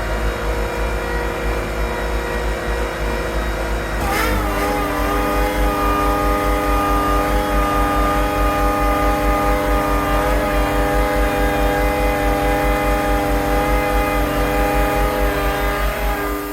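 Motor-driven workshop machine running steadily with a low pulsing beat. About four seconds in, a short hiss comes and its pitch steps slightly lower and holds steady; it stops near the end.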